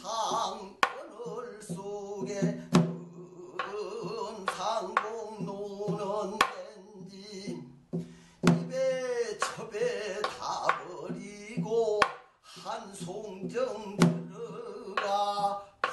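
Korean traditional pansori-style music: a melodic line with wide vibrato over sharp, irregular drum strokes.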